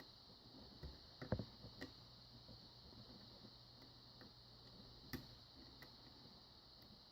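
Faint metallic clicks and ticks of a lock pick and tension wrench working the pins inside a pin-tumbler lock fitted with security pins, a little cluster of clicks just over a second in and a single click after about five seconds, otherwise near silence.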